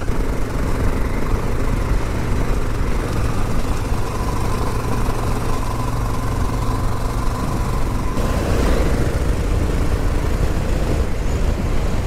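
Honda XL 600 R single-cylinder enduro motorcycle engine running steadily while riding along a gravel track, heard from on the bike.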